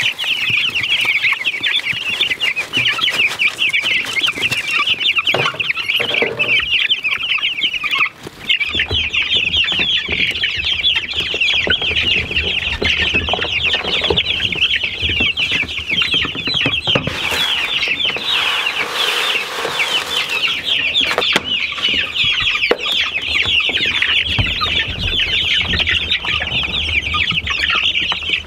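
A flock of young chickens peeping nonstop, many high-pitched cheeps overlapping. The sound drops out briefly about eight seconds in, then the peeping goes on.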